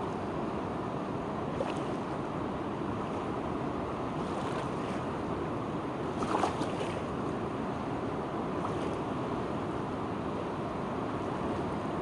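Wide, fast-flowing muddy river rushing over rapids: a steady rush of moving water, with a brief louder splash a little past the middle.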